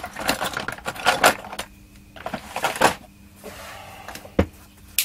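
Tools and small parts being handled on a workbench: a run of rattles and clicks, then a quieter stretch with two sharp clicks near the end.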